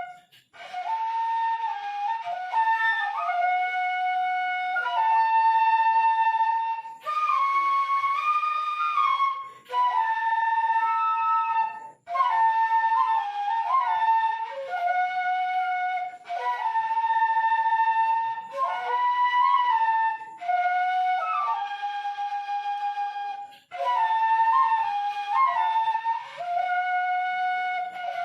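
Seruling emas, a traditional bamboo flute, playing a melody in short phrases of a few seconds each, with brief breaks between phrases.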